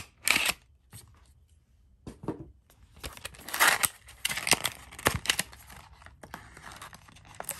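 Knife packaging being handled and opened: crinkling and rustling with a scatter of sharp clicks, busiest and loudest in the middle.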